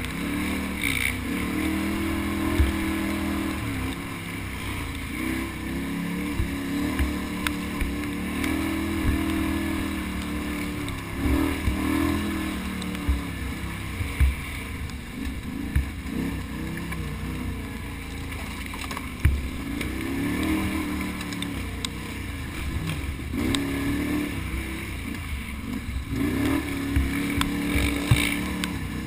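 Can-Am Outlander ATV engine with an aftermarket exhaust, revving up and falling back again and again under the throttle, with frequent sharp knocks mixed in.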